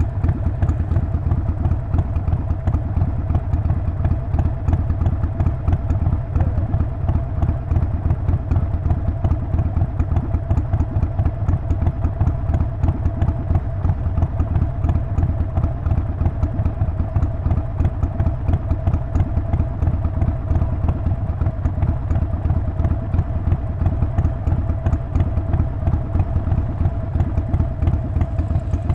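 Harley-Davidson Sportster Forty-Eight's 1200 cc V-twin engine and exhaust running at a steady, even pace. It makes a rapid, unbroken pulse with no change in revs.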